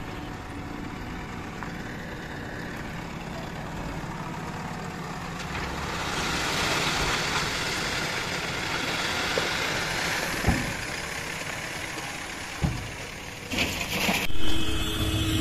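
Diesel engines of a JCB 3DX backhoe loader and a tipper truck running steadily. About a third of the way in a rush of soil pours from the backhoe bucket into the truck bed for a few seconds, followed by two sharp knocks. Near the end there is a louder rush as a load of earth slides out of the tipping truck bed.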